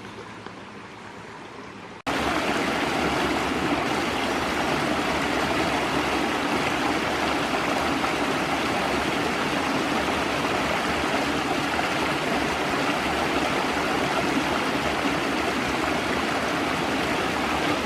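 Creek water rushing over a small cascade, a steady rush. It is softer at first, then jumps abruptly to a much louder, closer rush about two seconds in.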